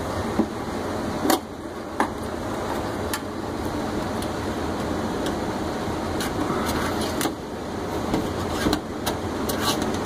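HVAC furnace blower running with a steady rush of air, with several sharp knocks and clicks as the cabinet panel and test hose fitting are handled.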